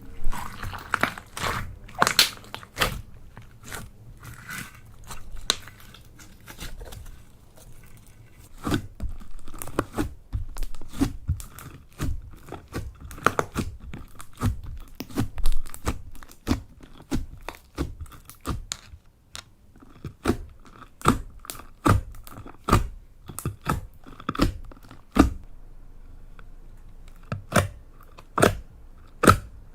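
Slime being squeezed and poked by hand, making irregular sharp pops and crackles. They come in dense clusters in the first half and as single pops spaced about a second apart later on.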